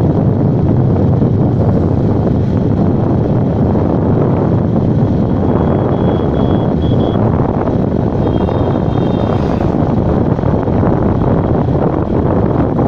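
Steady wind roar buffeting the microphone of a moving vehicle, mixed with engine and road noise.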